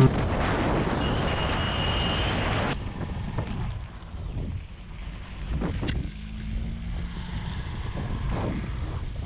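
Wind rushing over the microphone of a camera on a moving Hero Xpulse 200 motorcycle, with road noise underneath. The rush is stronger at first and eases off about three seconds in.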